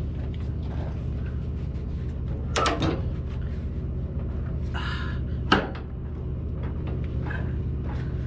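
A lever chain binder and its tie-down chain clanking as the binder handle is worked to tighten the chain on a tractor's track: a short cluster of clinks a little under three seconds in and one sharp clank about five and a half seconds in, over a steady low hum.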